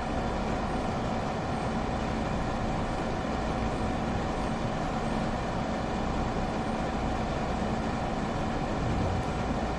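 A steady mechanical hum with a constant low tone and an even whooshing noise, unchanging throughout.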